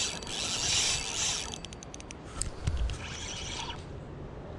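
Runcl Titan 2 4000 spinning reel being cranked in two spurts, a whirring with fine clicks: a longer turn of the handle at the start and a shorter one about three seconds in.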